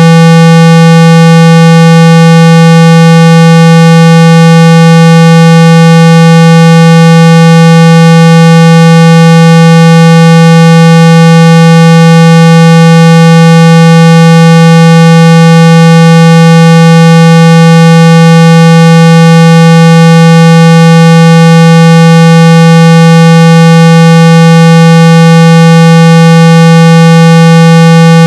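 Loud, steady, unbroken 165 Hz test tone with many fainter overtones above it, giving it a buzzy edge: a low-frequency tone played through a phone speaker to shake out water and dust.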